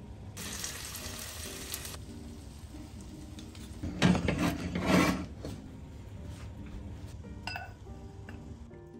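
Chicken and pepper fajita filling sizzling in a small skillet on a gas burner, then a louder scrape and clatter of a spoon against dishes about four seconds in, over soft background music.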